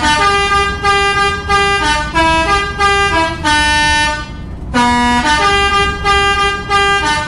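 Telolet-style Basuri multi-tone bus air horn playing a tune in quick stepped notes. About three and a half seconds in it holds one long note, which fades out; then the tune starts again.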